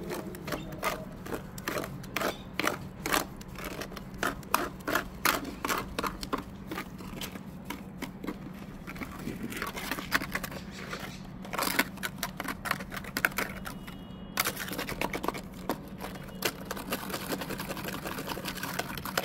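Irregular clicking, knocking and scraping of hand tools and a steel rod working wet microconcrete into a plumbing core-cut hole, over a steady low hum.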